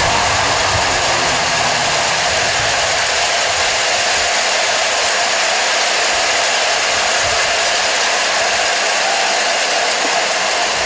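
A packed college football stadium crowd making a loud, steady din of cheering mixed with the clatter of many cowbells.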